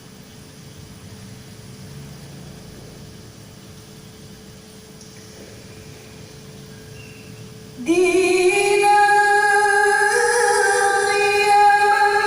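Faint hiss and a thin steady hum, then about eight seconds in a woman's voice comes in loud, chanting melodic Quran recitation in long, slowly gliding held notes.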